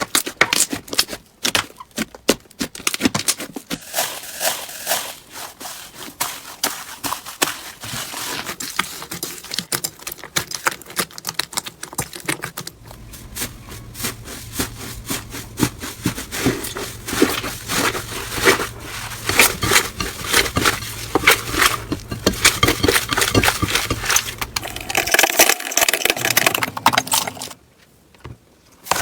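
Slime being squeezed and poked by hand: a dense run of small sticky clicks and crackles, with a steady low hum under the second half.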